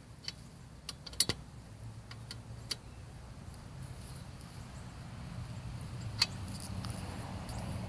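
A handful of light metallic clicks and clinks from a lug nut wrench and lug nuts as the nuts are snugged down on a spare wheel, most in the first second and a half, over a low steady hum.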